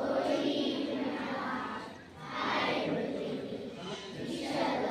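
A group of children's voices in unison, in phrases about two seconds long with a short break about two seconds in.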